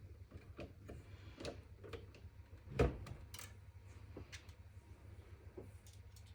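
Light clicks and taps from PC parts and cables being handled inside a desktop case, with one louder knock about three seconds in, over a steady low hum.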